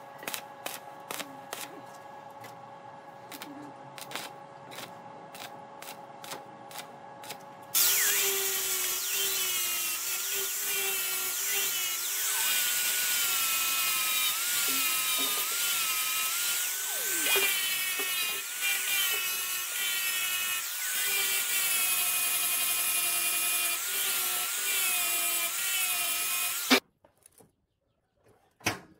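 Stick (arc) welding on steel tube, crackling with sharp pops over a steady hum for about eight seconds. An angle grinder then takes over abruptly, running loud with a wavering whine as its disc grinds down the welds on the square steel tubing. It stops suddenly near the end, followed by a couple of faint clicks.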